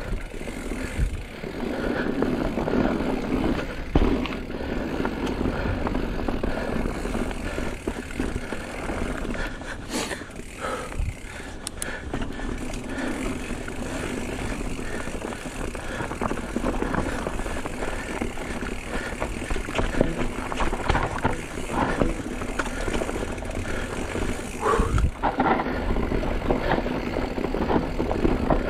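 Mountain bike riding down a dirt trail: tyres rolling and the bike rattling steadily, with a couple of sharper knocks, about four and ten seconds in.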